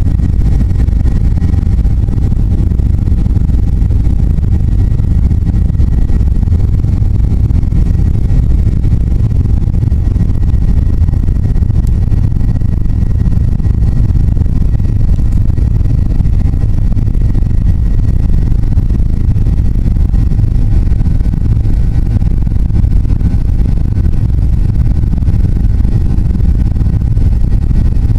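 Cabin noise aboard a Boeing 737-800 taxiing: a loud, steady low rumble from its CFM56 turbofan engines at low thrust and the rolling gear, with a faint steady whine over it.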